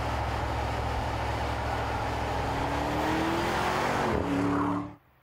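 Audi SQ8's 4.0-litre twin-turbo V8 pulling under acceleration over a steady low rumble. Its note rises in pitch, drops about four seconds in, then holds steady before the sound cuts off abruptly near the end.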